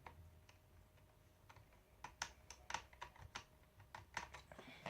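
Faint, irregular small clicks and taps of a screwdriver working the small screws that hold a laptop's cooling fan, with a few louder clicks from about two seconds in.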